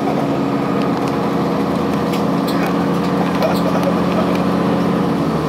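Cummins ISC diesel engine of a 2002 Blue Bird CS transit bus running steadily, a drone made of several steady tones, with light clicks and rattles over it. The engine note changes near the end.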